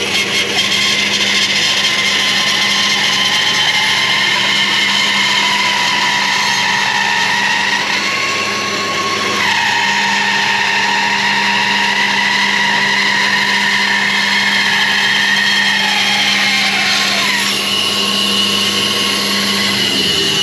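Axminster AP2920B bandsaw running and resawing a wide apple branch into a slab, a steady whine picked up by a camera mounted on the saw. The pitch dips twice, about nine seconds in and again near the end.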